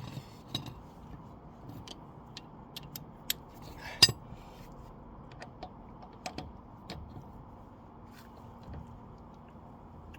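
Scattered metallic clicks and clinks of a wheel brace and socket being worked on a car's wheel nuts while they are checked for tightness, with one sharper clank about four seconds in.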